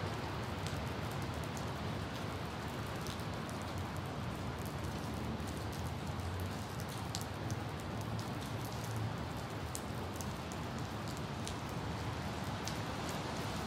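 Steady rain falling on a hard surface: a continuous hiss with scattered sharp drop ticks and a low rumble underneath.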